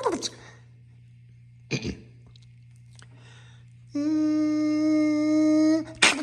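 A person's voice between vocal car-cranking imitations: a brief cough-like sound about two seconds in, then a steady held hum lasting about two seconds near the end.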